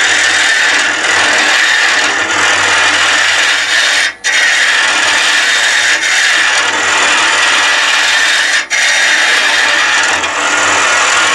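A 6mm carbide cutter on an arm-mounted hollowing tool cutting the inside of a wooden hollow form spinning on a lathe: a loud, steady scraping hiss as wood is taken away. It drops out very briefly twice, about four seconds in and again near nine seconds.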